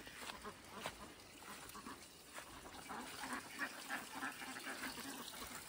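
Faint quacking from a flock of ducks, over trickling water.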